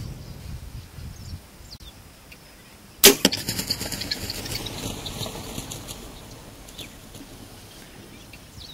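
A compound bow shot at a guineafowl about three seconds in: one sharp crack of the release, then about a second of rapid clicking and a rustling tail that dies away.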